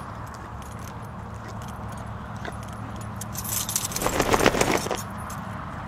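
A burst of light metallic jangling, starting about three and a half seconds in and lasting about a second and a half, over a steady low hum.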